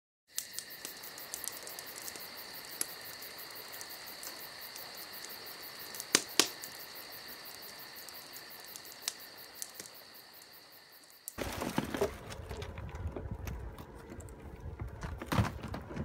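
Insects chirring in a steady chorus with a fine, rapid pulsing, and two sharp clicks about six seconds in. About eleven seconds in this cuts to wind rumbling on the microphone with scattered knocks and clatter.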